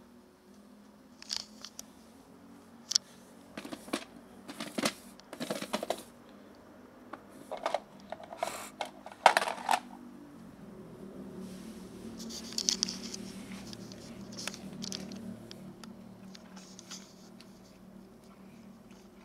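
Sharp clicks and rattles of a plastic food box and dry kibble being handled and set down, loudest about nine seconds in. From about eleven seconds in, a cat crunches dry kibble in a steady run of small crunches.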